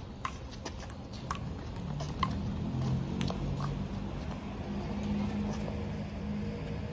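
Table tennis ball clicking off paddles and a concrete table in a rally, about one hit a second. A low steady hum comes in about two seconds in.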